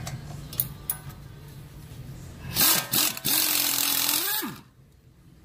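Two light tool clicks, then a Nitrocat 1200 air impact wrench runs in two bursts, a short one and then about a second and a half, a loud air hiss with a steady whine that bends in pitch as it stops: it is backing off the nut of the ball-joint pinch bolt.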